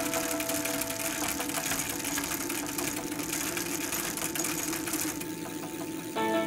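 Rapid, irregular mechanical clicking and rattling from a bicycle being ridden over road and paving, with background music. The clatter thins out near the end as the music grows louder.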